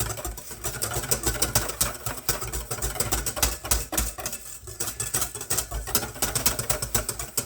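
Wire whisk beating egg yolks in a bowl, a fast, steady run of clicks as the wires strike the bowl, while the yolks are tempered with hot cream.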